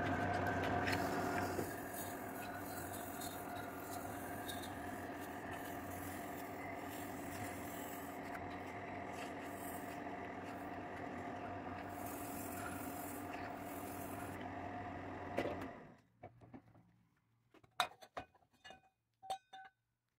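Metal-spinning lathe running while a brass blank is spun over a form: a steady hum with a held ringing tone, a little louder in the first second or two. About 16 seconds in the lathe stops, and a few light metallic clicks follow.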